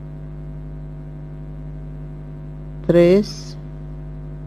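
Steady electrical mains hum under the recording: a constant low drone with a ladder of steady overtones above it.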